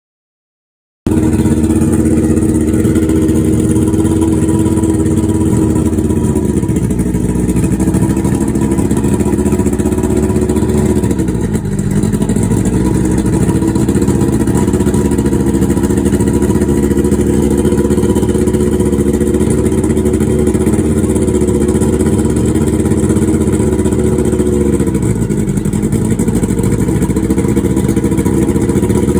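A motor starts abruptly about a second in and runs steadily and loudly, its pitch sagging briefly and recovering three times.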